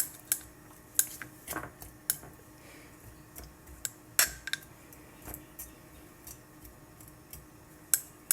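Butter knife tapping and scraping against the inside of a jar while stirring chopped onions into honey: irregular sharp clicks and taps, about one a second.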